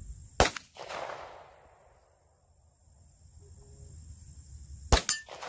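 Two gunshots about four and a half seconds apart, each sharp crack followed by an echo that trails off over about a second.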